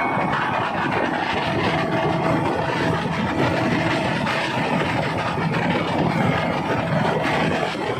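Old 40 hp outboard engine on a speedboat running steadily under way.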